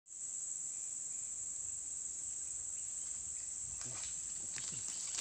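Steady, high-pitched drone of insects in the streamside bush, unbroken throughout, with a few faint rustles near the end.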